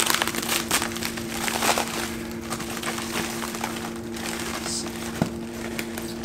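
Plastic FedEx Padded Pak courier mailer crinkling and rustling as it is torn open and handled. The crinkling is busiest in the first couple of seconds, then turns sparser with scattered crackles.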